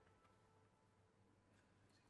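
Near silence: quiet room tone, with the last echo of a trumpet note dying away at the very start and a few faint clicks.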